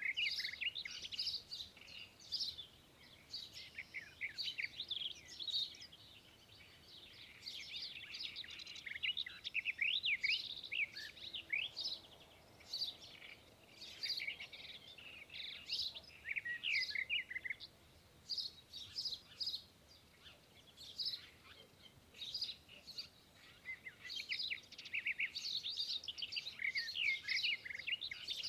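A chorus of many small birds chirping and calling at once: dense runs of short, high chirps and quick sweeping notes, thinning briefly now and then.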